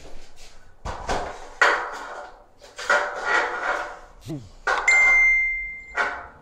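Scraping and rustling handling noises come in three bursts, with a brief falling squeak. Near the end a steady ringing tone lasts about a second and stops abruptly with a knock.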